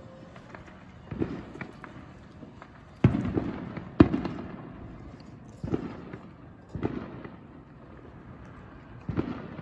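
Fireworks going off: about six sharp booms at uneven intervals, each trailing off in a rumbling echo. The loudest two come about three and four seconds in.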